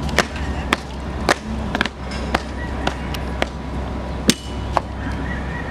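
Marching drill: the flag escort's shoes stamping on the court in unison, about nine sharp stamps at roughly two a second, over a steady low rumble.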